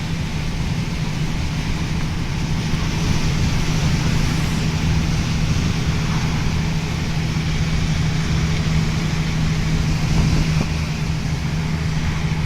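An engine running steadily with a constant low hum, under a broad rushing noise.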